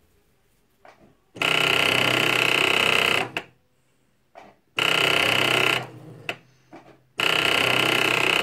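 Brother Innov-is NV2600 computerised sewing machine running in three short bursts with a harsh, ringing buzz instead of its normal stitching sound, the odd noise it makes while failing to sew. Small clicks fall in the pauses between bursts.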